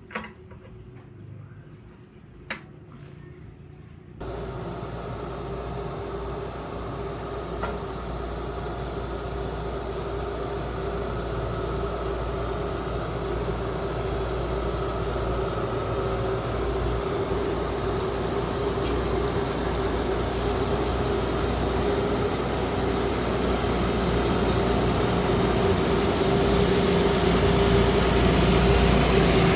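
Two sharp clicks, then about four seconds in a small engine starts running abruptly and runs steadily, with one constant tone, growing gradually louder.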